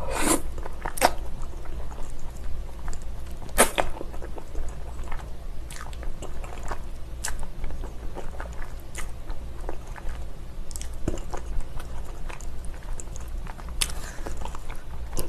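Close-miked eating of spicy cold noodles in a thick chili sauce: slurps as noodles are drawn in, right at the start, about four seconds in and again near the end, with wet chewing and small mouth clicks in between.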